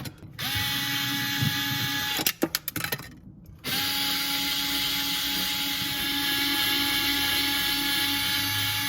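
A cordless drill-driver running in two spells, about two seconds and then about five, spinning up at each start, with a few clicks between the spells.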